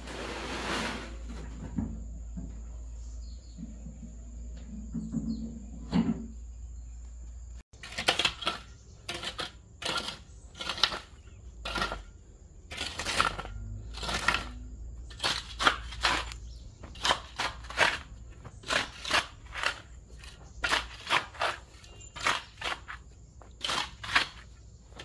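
Footsteps crunching on dry ground, an irregular run of short crackly steps about once a second that starts suddenly after the first several seconds. A thin, steady, high insect trill runs behind.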